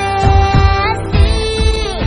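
Indian film-style song playing, a voice holding long notes over a drum beat.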